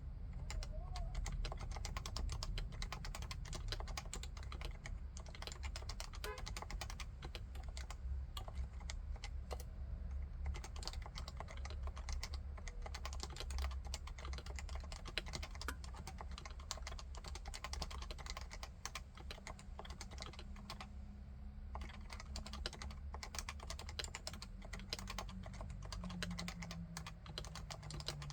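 Continuous fast typing on a Leopold FC660C keyboard with standard Topre electrostatic capacitive switches: a dense, unbroken run of keystrokes that thins out briefly about two thirds of the way through.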